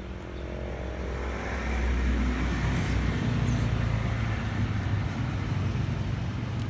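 A motor vehicle engine running steadily, growing louder over the first two seconds and then holding a steady low hum.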